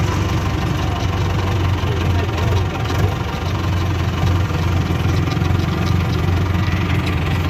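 Tractor's diesel engine running steadily at low revs, heard from the driver's seat with a strong low hum.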